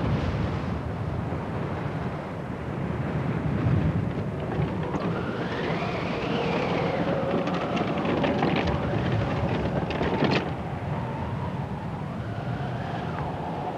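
Film soundtrack effects: a steady low rumble like wind, with a whistling tone that rises and falls about halfway through. A few sharp ticks follow near the ten-second mark.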